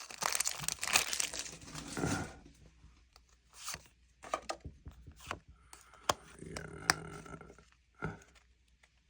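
Foil Pokémon booster pack wrapper crinkling and tearing open for about two seconds. Scattered light clicks and short rustles of handling follow.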